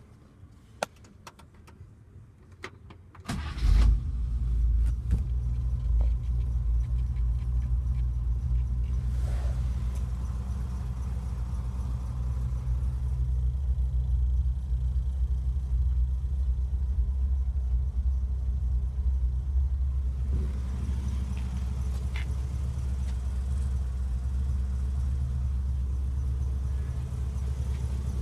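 1955 Chevrolet Bel Air engine starting about three seconds in, after a few faint clicks, then idling steadily with a deep, even low tone.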